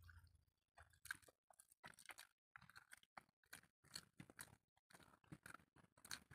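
Faint chewing and wet mouth clicks and smacks of people eating rice and egg curry by hand, in quick irregular bursts, a few each second.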